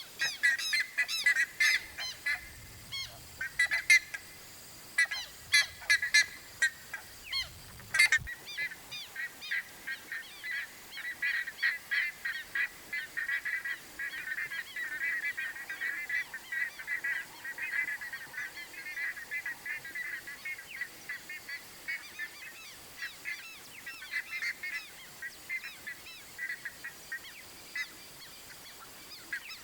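Buff-necked ibis (curicaca) calling: loud, sharp calls repeated with short gaps for the first eight seconds or so, then a denser, steadier run of rapid calls.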